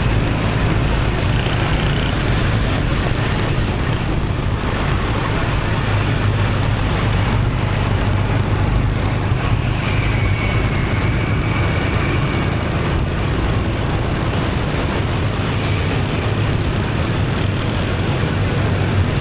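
Motorbike riding in city traffic: a steady low engine hum and road noise, with the mixed sound of the surrounding traffic and a faint high tone about ten seconds in.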